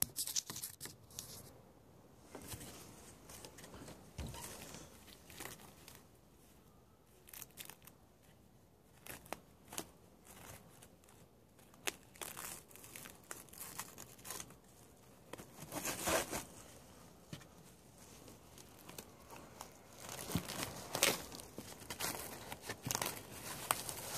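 Plastic cling wrap crinkling and tearing as it is pulled off the roll and stretched tight around a freshly glued shoe. The crackles come in scattered bunches, louder and more frequent in the second half.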